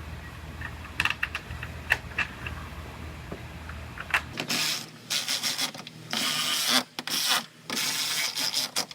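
Light clicks and knocks of parts being handled, then, from about halfway, a cordless power tool whirring in five short bursts while tail light nuts are run down.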